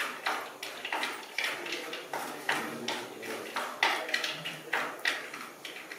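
Wooden spatula scraping and knocking against the inside of a clay pot, about twice a second, as it stirs almonds frying in hot ghee, with a faint sizzle between the strokes.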